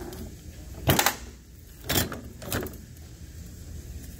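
Oily steel clutch drum and plates from a Ford 8F35 automatic transmission clanking as they are handled and set down. There are three knocks: the loudest, a double one, about a second in, then two lighter ones about a second and a second and a half later.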